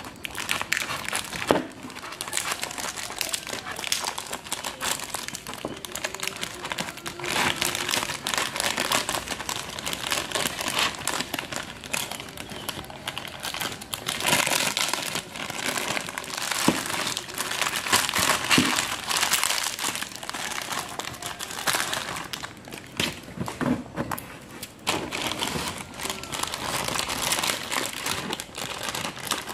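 Thin clear plastic bag crinkling and rustling, with irregular sharp crackles, as hands handle it and cut it open with scissors.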